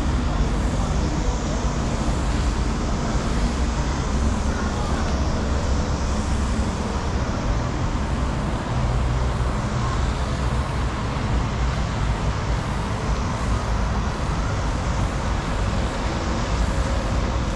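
Steady road traffic noise: a continuous low rumble of passing vehicles with no single vehicle standing out.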